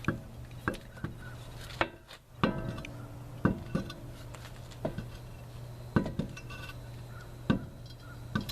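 Irregular metallic clanks and knocks, roughly one a second, several with a short ring after them. This is a steel spare wheel knocking against the hub and wheel studs as it is worked into place.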